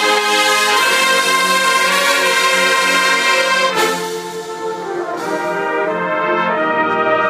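Drum and bugle corps brass line, with tubas and other brass horns, playing loud sustained chords together. About four seconds in the chord cuts off and the ensemble comes back softer, then swells to full volume again.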